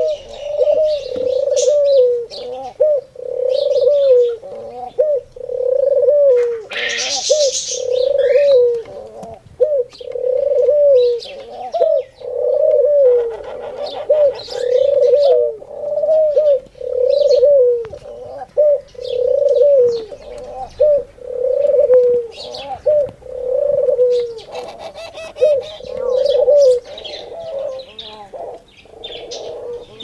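Caged ringneck dove (qumri) cooing in a long run of repeated coos, about one a second, that stop near the end. Faint high chirps of other birds sound over it, with a brief rustle about seven seconds in.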